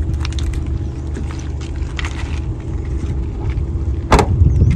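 Light knocks of gear being shifted in an SUV's boot, then the rear hatch slammed shut with one loud bang about four seconds in, over a steady low rumble.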